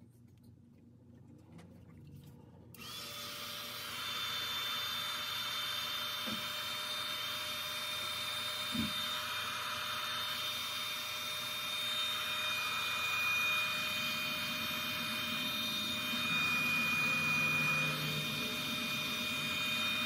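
Mini hot air gun switched on about three seconds in and running steadily, its fan giving a high whine over a rushing hiss of air, used to shrink heat-shrink tubing over a soldered power-cord joint.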